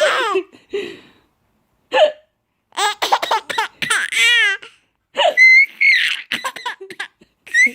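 Five-month-old baby laughing in bursts of high-pitched squeals and giggles, with short, sharp hiccups among them.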